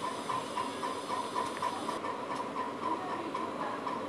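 Steady background hiss with faint short blips repeating about three times a second.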